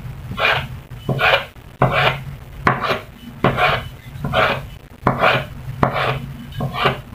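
Kitchen knife slicing a hotdog on a wooden cutting board: about nine short strokes at a steady pace, a little under a second apart, each cut ending on the board.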